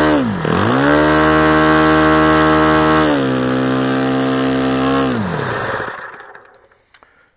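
Saito .65 four-stroke glow engine turning a 13x6 propeller, running cleanly: a throttle blip near the start, then held at high revs, eased back slightly about three seconds in. It is shut off by pinching the fuel line and spins down to a stop by about six seconds in.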